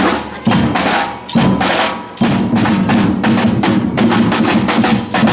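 Batucada samba percussion group playing a dense, driving rhythm: deep bass drums under snare drums and sharp wood-block-like hand-percussion strokes.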